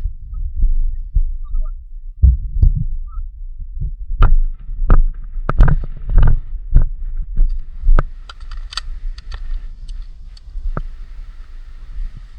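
Irregular thumps and sharp clicks, about a dozen spread over several seconds, over a steady low rumble.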